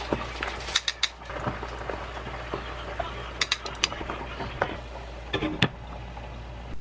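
Metal kitchen utensils clinking against a pot and dishes: a handful of sharp clinks, two close together about a second in and a quick cluster a little after three seconds, over a steady low hum.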